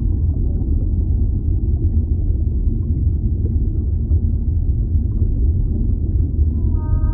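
Steady deep rumble of underwater ocean ambience, with no whale calls over it. Near the end a whale call begins, several held tones sounding together.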